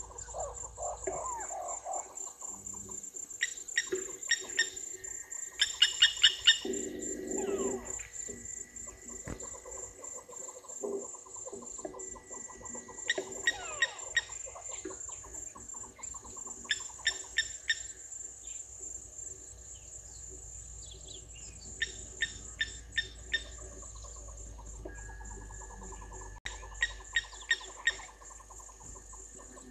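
Blacksmith lapwing calling in about six short runs of sharp, metallic 'tink' notes, three to six notes each, over a steady high insect drone and fainter birdsong.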